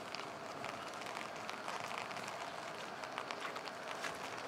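Steady rain falling: an even hiss dotted with many small, sharp drop ticks.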